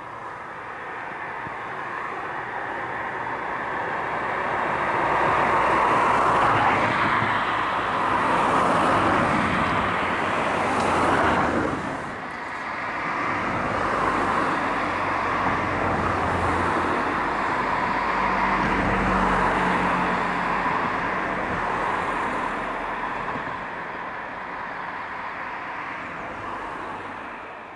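Road traffic: a steady run of cars passing with engine and tyre noise, swelling in the first few seconds. One vehicle passes close about eleven seconds in, and the sound fades out at the very end.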